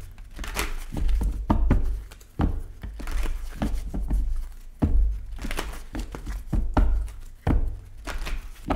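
A deck of tarot cards shuffled by hand: an irregular run of card slaps and soft thumps as the cards are split and dropped back together.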